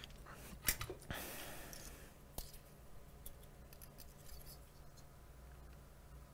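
Faint clicks and a brief scraping rustle from tools handled at a soldering bench, over a low steady hum.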